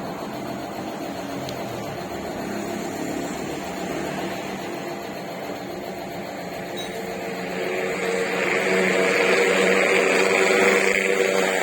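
A motor-driven workshop tool running steadily, growing louder with an added hiss from about eight seconds in.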